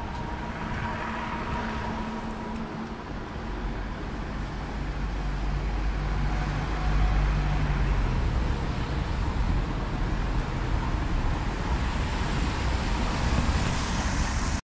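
Street traffic: a vehicle engine hums close by, strongest around the middle, then the hiss of passing traffic builds toward the end. The sound cuts off abruptly at the very end.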